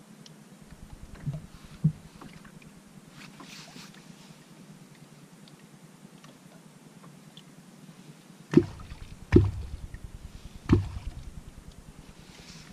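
Catfish clonk (wooden kwakhout) struck into the lake surface: three deep, hollow plops about a second apart in the second half, after two smaller knocks near the start. These are strokes meant to draw a catfish up to the bait.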